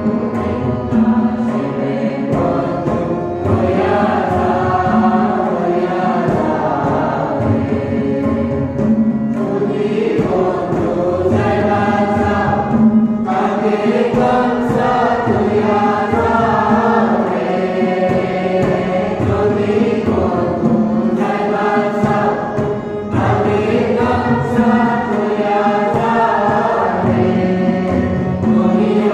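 A group of voices singing a chant-like song together over sustained low accompanying notes that change every second or two.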